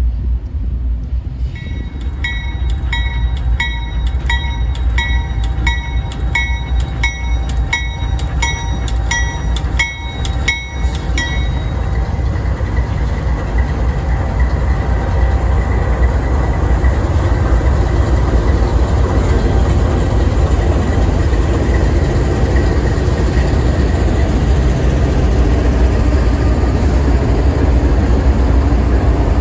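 A bell rings steadily, about three strikes every two seconds, over a low train rumble, and stops abruptly about eleven seconds in. Then a lash-up of CSX diesel-electric freight locomotives rolls slowly past close by: a deep, steady engine rumble with wheels on the rails, growing louder.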